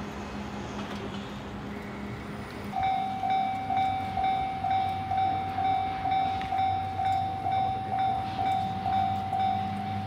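Japanese electronic level crossing alarm in the JR standard tone, dinging about twice a second. It starts abruptly about three seconds in, after a few seconds of steady low street noise.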